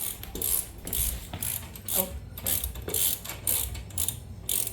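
Hand ratchet wrench clicking in quick repeated strokes, about three a second, as a bolt on the motorcycle's front end is loosened.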